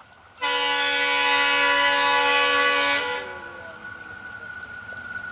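WDM-3A diesel locomotive's horn sounding one long, steady blast of about two and a half seconds, then cutting off. Afterwards the running noise of the approaching train slowly grows.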